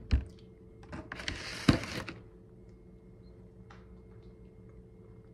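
A knock, then a short rustle with a sharp knock in it about a second and a half in, from handling things at the counter; after that, faint small clicks of a cookie being chewed over a low steady hum.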